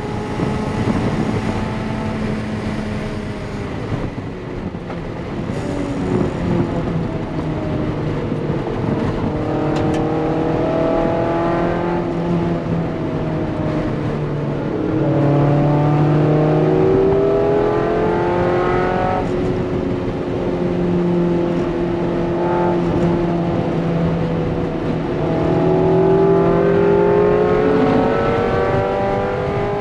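Mazda MX-5 NC's 2.5-litre four-cylinder engine heard from inside the cabin at speed on track. The engine note climbs in pitch through the revs three times and drops back between pulls, over steady tyre and road noise.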